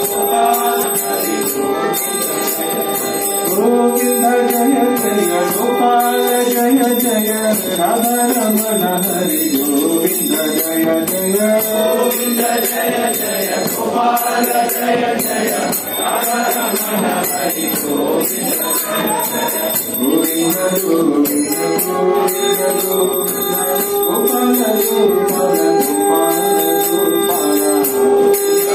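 Devotional kirtan: voices singing a melody over a steady held drone, with small hand cymbals jingling in a steady beat.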